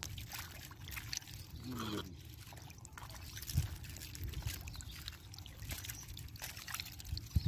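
Wet mud squelching and sloshing as hands and thin metal rods probe and dig through soft mud for stinging catfish, with water trickling and splashing now and then.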